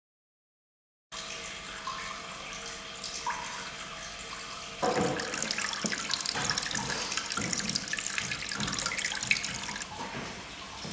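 Water running and trickling over a white sculpted fountain form, starting about a second in and becoming louder and splashier about five seconds in.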